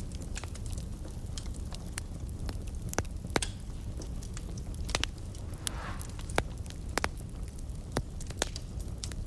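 Wood fire burning in a fireplace: a steady low roar with irregular sharp crackles and pops, and a brief hiss about six seconds in.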